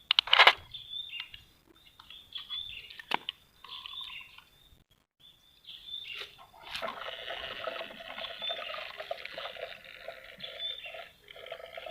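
Toy RC excavator working sand: a sharp crunch of sand right at the start and a few clicks, then from about halfway its small electric motors whine steadily as it digs and swings.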